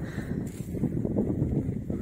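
Strong wind buffeting the microphone: a low, rumbling noise that rises and falls with the gusts.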